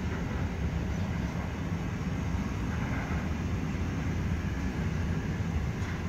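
Container freight train's wagons rolling past: a steady rumble of steel wheels on the rails.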